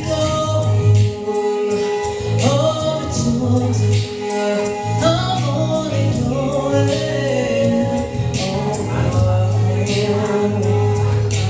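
A live band playing a song with singing and vocal harmonies, held low bass notes and a steady percussive beat.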